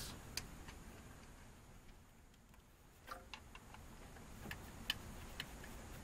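Faint, scattered light clicks and taps from parts being handled at the distributor. There are about five in all, spaced irregularly, with a small cluster about halfway through.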